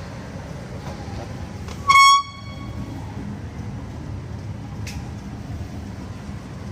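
A single short electronic beep about two seconds in, loud and pitched, its ring fading over about a second, above a steady low background hum.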